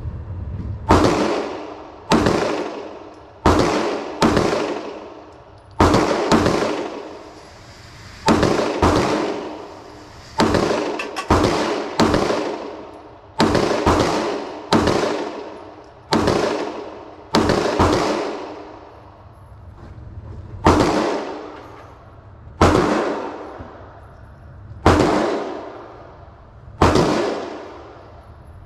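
Firearm shots fired one after another at a shooting range, about two dozen sharp reports roughly a second apart, each ringing out with a long echo. There is a longer pause about two-thirds of the way through before the firing resumes.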